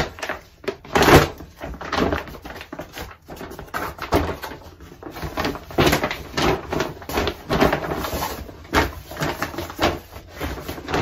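Rustling, crinkling handling noise as a fabric laundry basket is pulled out of its packaging and shaken out, with scattered sharp knocks and thumps.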